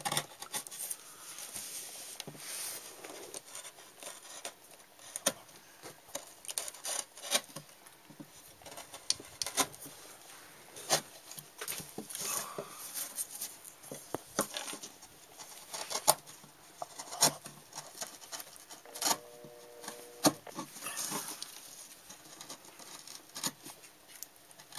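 Hand carving gouge cutting into a wooden panel: a run of irregular crisp clicks and scrapes as the blade pares away small chips. There is a short squeak about three-quarters of the way through.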